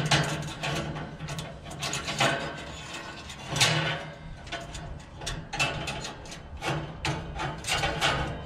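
Irregular metallic clicks, clanks and scrapes of gas grill burner parts being worked apart.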